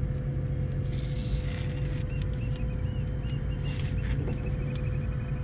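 Steady low hum of a boat's engine idling, with a faint steady tone above it and a few faint ticks.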